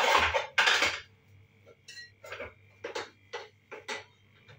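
Plastic parts of a small makeup mirror being fitted together by hand: two loud scrapes in the first second, then a string of about six short clicks and creaks.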